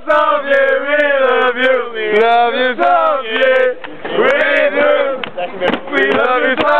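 A group of male sports fans chanting and singing loudly together, a supporters' song sung in phrases with brief breaks between them.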